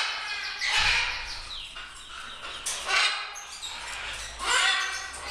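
Parrot calls: three short bursts of chattering, about two seconds apart.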